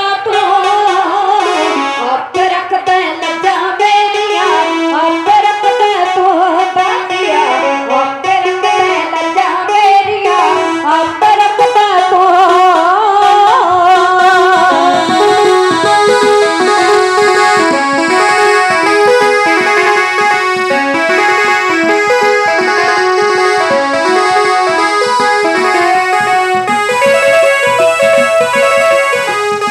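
Live amplified devotional folk music: women singing with small hourglass hand drums and an electronic keyboard. About halfway through, the singing drops out and a keyboard melody carries on.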